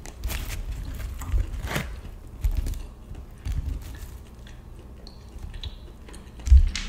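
Fingers picking through a pile of french fries on a paper tray liner close to the microphone: a string of crinkles and clicks with several soft low thumps, the loudest thump near the end.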